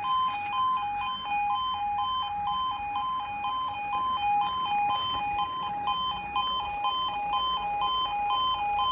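Level crossing warning alarm sounding, a two-tone signal that alternates steadily between a higher and a lower note about twice a second.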